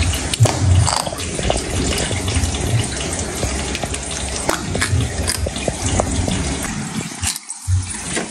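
Freshwater pufferfish crunching hard-shelled prey (snail shell and crayfish) with its beak: irregular sharp cracks and dull low thumps over a steady watery aquarium noise.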